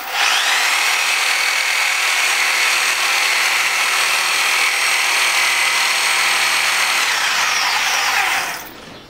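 A high-speed electric power tool runs at a steady high-pitched whine, then winds down near the end.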